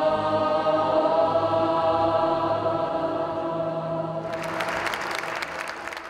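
Choir with orchestra holding a final sustained chord, then audience applause breaks out about four seconds in.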